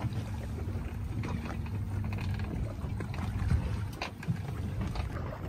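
Wind rumbling on the microphone aboard a small open fishing boat, with water moving against the hull and a few light knocks.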